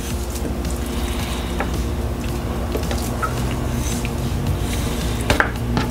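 Chef's knife slicing raw chicken thighs on a wooden cutting board, with a few light taps of the blade against the board, over a steady low background.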